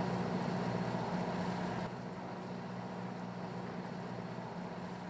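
Boat engine running at a steady speed, a low even hum over wind and sea noise; the hum drops a little in level about two seconds in.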